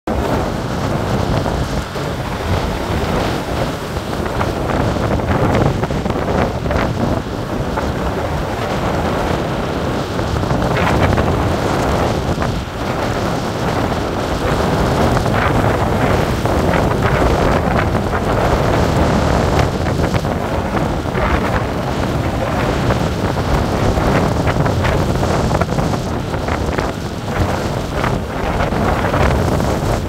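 Strong wind buffeting the microphone over heavy storm surf breaking on a beach: loud, steady noise that swells with the gusts.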